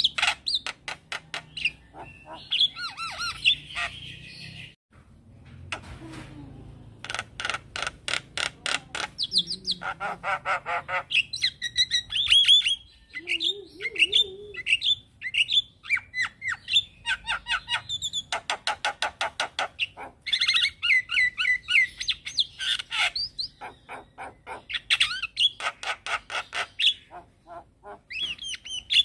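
Javan myna (jalak kebo) singing a long, varied song: fast rattling trains of clicks alternate with whistled chirps that bend up and down, with a brief pause about five seconds in.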